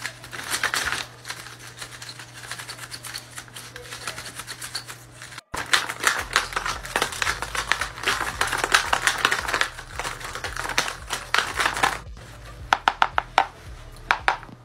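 Folded paper dragon puppets snapping their jaws: quick runs of dry paper clacks, broken by a short gap about five and a half seconds in. Near the end the clacks come as a few separate sharp snaps.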